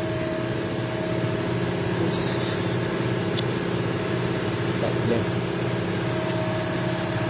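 Toyota HiAce 2KD-FTV four-cylinder turbodiesel running steadily at idle, with a knock that keeps time with engine speed. The knock is the sign of a scored piston and cylinder liner in cylinder number 3.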